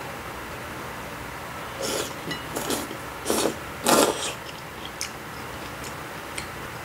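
A person slurping hot kimchi noodle soup from a bowl: a run of short, quick slurps between about two and four seconds in, the last one the loudest.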